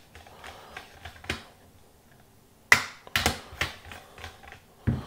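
Sharp clicks and knocks of an espresso portafilter and tamper being handled after tamping the coffee. The loudest knock comes about halfway through, followed by a quick run of clicks and another knock near the end.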